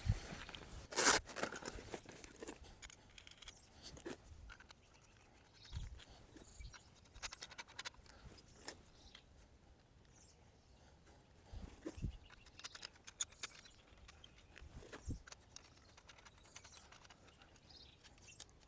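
Fishing gear being handled while a rod pod is set up: scattered clicks and scrapes, a sharp clack about a second in, and a few dull thumps.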